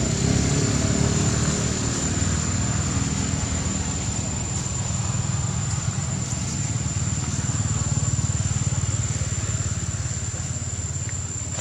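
A motor vehicle engine, likely a motorcycle, running steadily close by: a dense low rumble with a fast even pulse. It eases off a little near the end.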